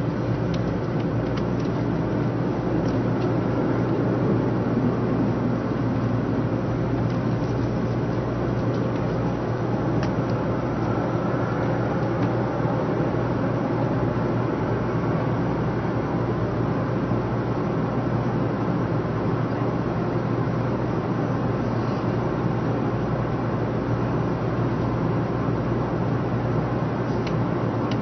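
Steady low hum and rumble inside a JR West 500 series Shinkansen car, with a few faint clicks.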